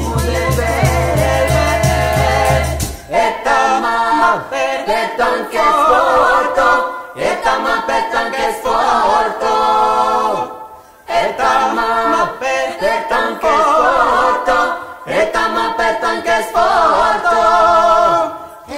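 A small group of mixed voices singing Occitan polyphony a cappella, in phrases broken by short pauses about every four seconds. For the first three seconds a low rhythmic pulse with a rattle runs under the voices, then the voices go on alone.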